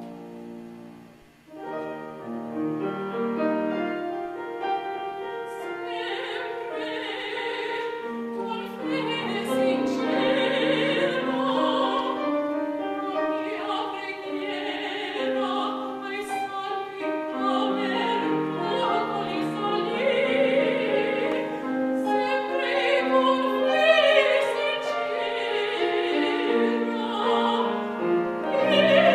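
A soprano sings an operatic line with a wide vibrato over piano accompaniment. For the first few seconds only the piano plays, then the voice comes in.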